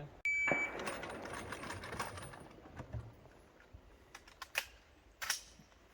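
A short electronic shot-timer beep just after the start. It is followed by a few sharp, scattered clicks, the two loudest late on.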